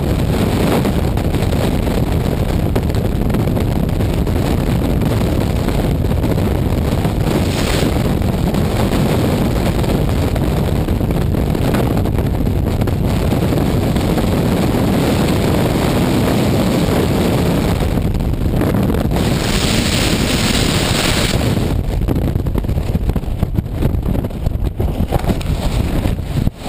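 Freefall wind rushing over a skydiver's helmet camera microphone: a loud, steady roar of air. A brighter hiss comes in for a couple of seconds about twenty seconds in, and the rush turns gusty and uneven near the end.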